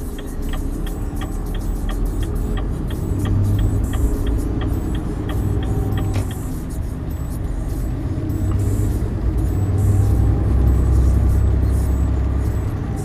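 Renault T truck's diesel engine pulling under acceleration, heard from inside the cab, its low drone swelling twice. For the first half the turn indicator ticks steadily, about three times a second, then stops.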